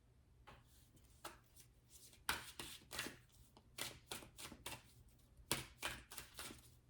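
Tarot deck being shuffled by hand: a string of faint, irregular card snaps and swishes.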